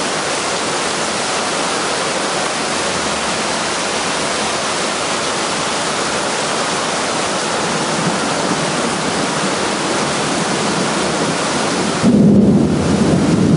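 Heavy rain pouring down in a thunderstorm, a steady dense hiss; about twelve seconds in it turns louder and deeper.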